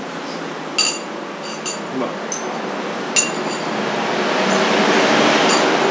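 About five sharp, ringing clinks of metal or glass tableware being handled, the loudest about a second in and about three seconds in, over a steady hiss that grows louder in the second half.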